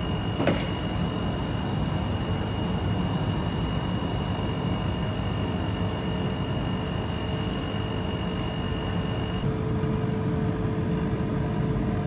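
Steady low machine hum and rumble with a thin high whine that stops about three-quarters of the way through, as a lower steady hum tone comes in; a single sharp click about half a second in.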